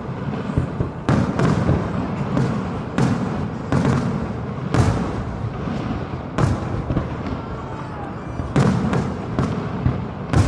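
Aerial fireworks bursting: an irregular series of about a dozen loud bangs, a second or so apart, with crackling and rumble between them.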